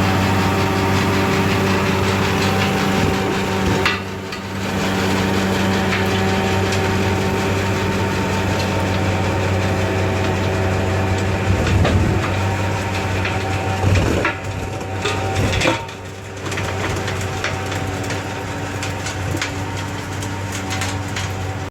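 A large tractor's engine running steadily under load while a Suokone Mericrusher MJHS rotavator churns and crushes the ground, with scattered knocks and cracks. The sound drops away briefly a few times.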